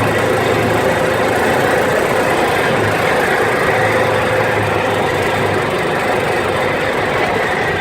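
Arctic Cat off-road vehicle's engine running steadily while riding, a loud, even drone.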